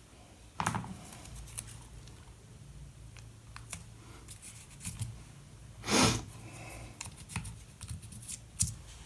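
Small workbench handling sounds: a scatter of short clicks and snips as pieces of kydex and fuel hose are handled and cut, with one louder knock about six seconds in.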